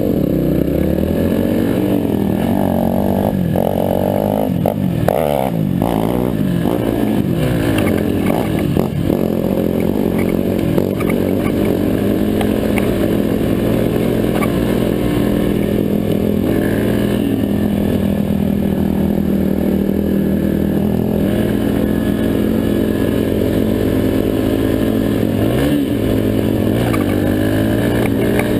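Four-stroke Yamaha dirt bike engine running under way on a gravel trail, its pitch rising and falling with throttle and gear changes. Knocks and rattles come through from about three to nine seconds in.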